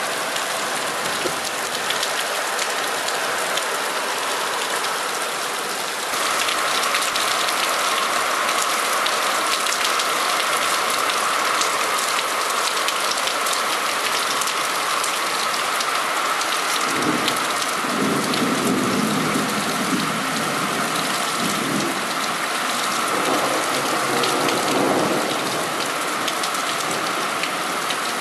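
Heavy thunderstorm rain pouring steadily, with low thunder rumbling in the second half: one long roll and then a shorter one near the end.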